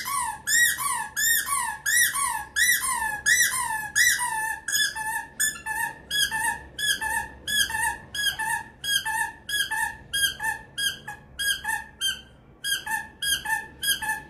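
A long run of high squeaky calls, about two a second, each a short falling note. For the first few seconds the notes glide longer, after that they become clipped chirps, with a brief pause near the end.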